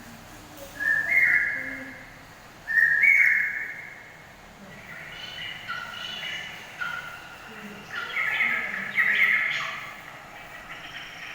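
Whistled calls: three short two-note whistles, each stepping up in pitch, about two seconds apart, then a busier run of overlapping whistled notes from about five seconds in.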